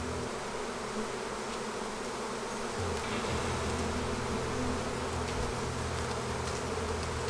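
Honeybees buzzing in large numbers around an opened hive as they boil out over the boxes: a steady, dense hum.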